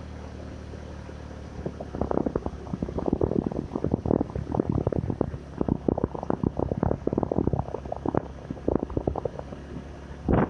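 A vehicle engine running steadily at a low hum on the move. From about two seconds in until near the end, irregular rumbling and crackling on the microphone lies over it, with one strong burst near the end.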